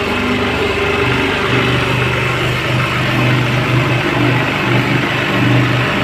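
Mini road roller's small engine running steadily, its low note throbbing unevenly as the roller works.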